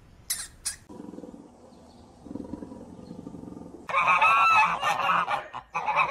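Goose honking: loud, harsh calls about four seconds in and again near the end, after a low rough drone.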